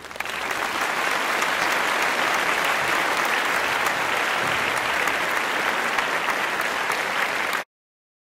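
Audience applauding steadily, many hands clapping at once; it cuts off abruptly near the end.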